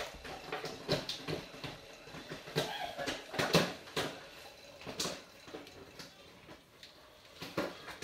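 Hotpoint WMFUG 942 front-loading washing machine drum tumbling wet laundry through water: irregular sloshing splashes and soft thuds every second or so as the clothes drop.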